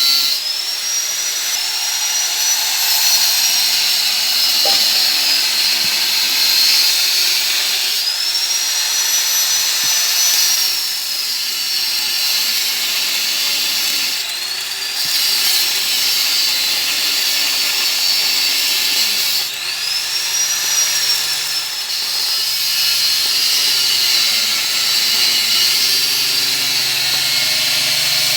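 A handheld electric power tool runs continuously with a loud, hissing, high-pitched whine. The pitch rises and falls several times as the tool is pressed into work and eased off.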